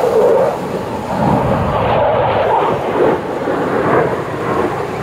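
Jet engines of a four-ship formation of US Air Force Thunderbirds F-16 Fighting Falcons passing low overhead. Loud, deep rushing jet noise that peaks at the start and then wavers in loudness.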